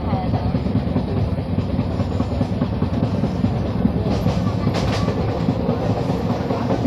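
Steady rumble and clatter of an LHB passenger coach's wheels running fast on the rails, heard from on board, with a few sharper clicks about four to five seconds in.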